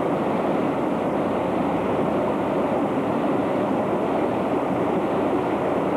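Fast-flowing floodwater from a swollen stream rushing steadily and churning around a partly submerged wheeled machine.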